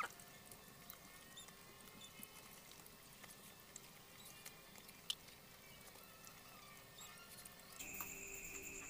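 Near-quiet eating by hand, heard only as faint scattered clicks, one a little sharper about five seconds in. About eight seconds in, a cricket starts a steady, high-pitched trill.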